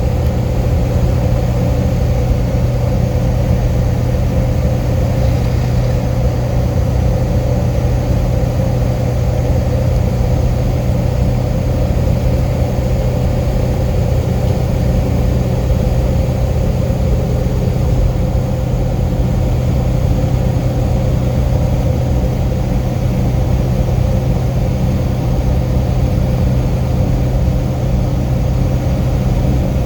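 Vehicle engine running steadily: a constant low drone with an unchanging hum, no rise or fall in pitch.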